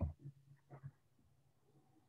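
A few short soft taps in the first second, then a faint steady low hum.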